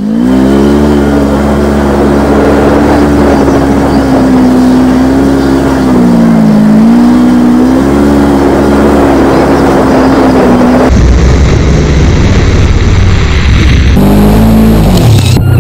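Polaris RZR side-by-side engine running on a dirt trail, its pitch rising and falling with the throttle. The engine sound changes abruptly about eleven seconds in and again near the end.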